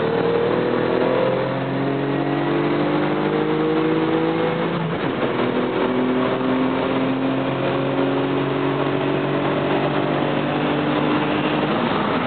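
Mitsubishi 3000GT's 3.0-litre V6 at full-throttle acceleration, heard from inside the cabin. The engine note climbs through a gear, drops at an upshift about five seconds in, and climbs again through the next gear until another shift near the end. Steady wind and road noise run underneath.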